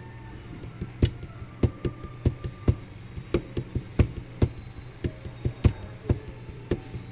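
Fingers tapping sharply on a smartphone, a run of irregular taps about two to three a second that starts about a second in, over a steady low hum.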